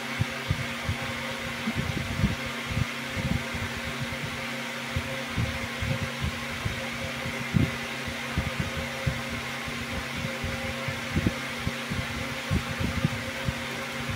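Steady hum and whir of a running motor-driven appliance, with scattered soft low thumps.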